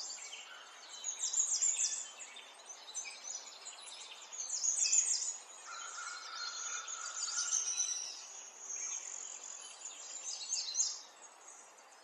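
Baby vervet monkey giving clusters of quick, very high-pitched chirps and squeaks, which stop about a second before the end.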